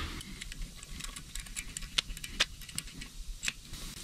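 Faint handling of small hand tools: scattered light clicks and ticks, a few sharper than the rest, as a thread tap in its tap handle is picked up and readied for tapping.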